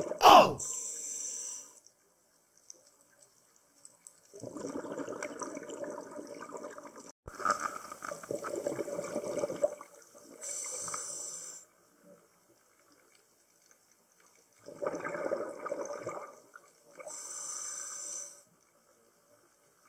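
Scuba diver breathing through a regulator underwater: a hissing inhale alternates with a longer rushing, bubbling exhale, about three breaths with quiet gaps between them.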